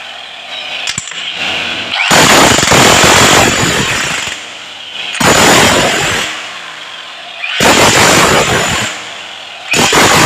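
A power tool run in four loud bursts of one to two seconds each, with short pauses between.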